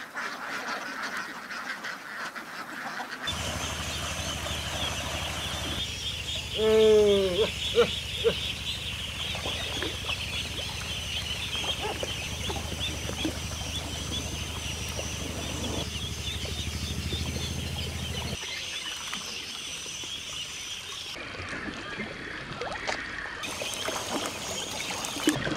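A large flock of domestic ducklings peeping constantly in a dense, high chorus, with one loud falling call about seven seconds in.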